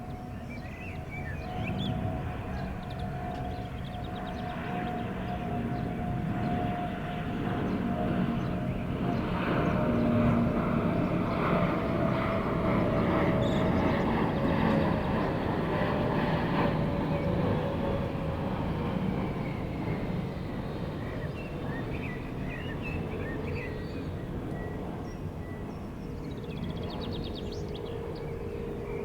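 Jet airliner on landing approach passing low overhead. The rumble swells to its loudest about halfway through and then fades, under a steady whine that slowly falls in pitch. Birds chirp near the start and near the end.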